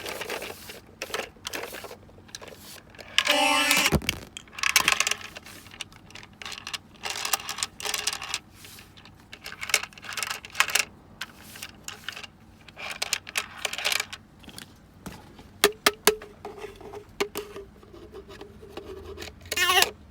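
Plastic owl shape-sorter toy being handled: shape pieces clatter, click and scrape against it throughout, with a short pitched electronic sound effect from the toy about three seconds in and another brief burst near the end.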